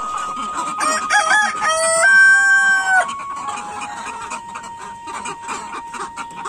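A rooster crows once, starting about a second in and lasting about two seconds, ending on a long held note, amid a flock of chickens clucking. A soft flute melody plays underneath.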